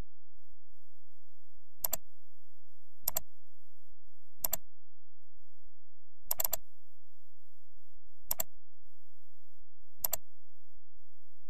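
Computer mouse clicks: six sharp clicks, each a quick double tick, spaced one to two seconds apart.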